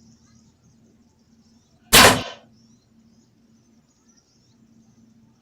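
A single loud gunshot about two seconds in: one sharp crack with a short fading tail.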